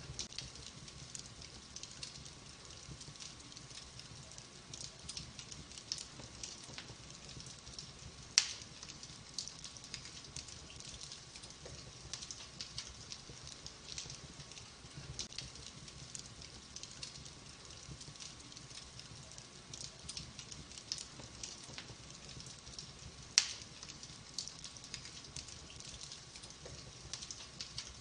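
Wood fire in a fireplace crackling: a steady scatter of small snaps, with two much louder pops about fifteen seconds apart.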